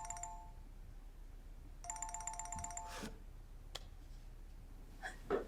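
Mobile phone ringing: a trilling two-tone ring, one ring ending about half a second in and another starting about two seconds in and lasting just over a second. A brief thump near the end.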